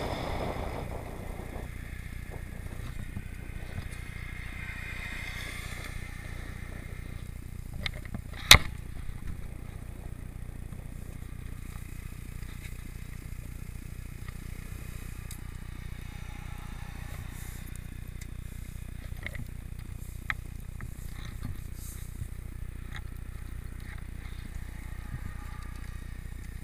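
Motorcycle slowing to a stop, its wind noise dying away in the first couple of seconds, then the engine idling with a steady low hum. A single sharp click cuts through about eight seconds in, with a few faint ticks later.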